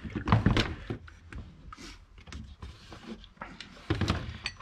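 Irregular knocks and clatter of chainsaws and their molded covers being handled and set down on a workbench, loudest about a third of a second in and again near the end.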